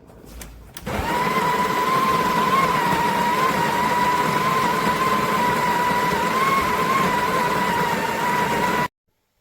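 Sage Barista Express espresso machine running: a loud, steady whirring with a high whine through it, starting about a second in and cutting off abruptly near the end.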